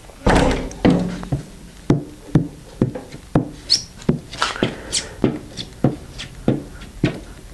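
A spatula scraping and slapping thick polyester screen-printing ink on the screen mesh as the ink is mixed, in short strokes about twice a second.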